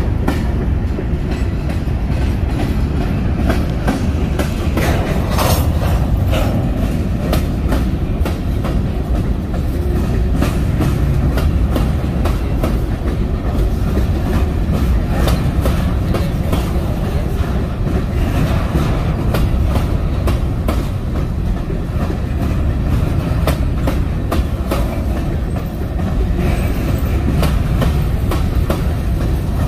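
Railroad cars rolling past: a steady low rumble with wheels clicking over the rail joints.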